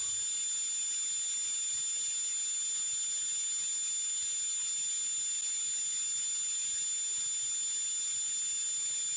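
Hamburger patty sizzling in oil on a hot flat-top griddle: a steady, even high hiss, with a thin steady high-pitched whine alongside it.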